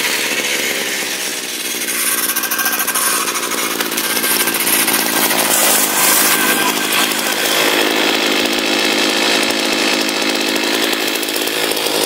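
Dolmar MS 3202 brushcutter's two-stroke engine running steadily under throttle. It grows a little louder after about two seconds.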